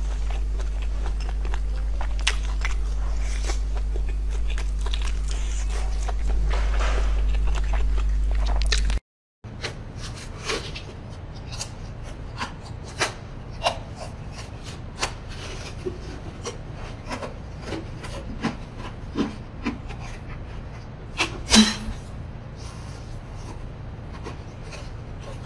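Close-miked mukbang eating sounds: chewing of grilled skewered food over a steady low hum. After a cut, quieter scattered sharp clicks and crackles follow, with one loud crack about 21 seconds in.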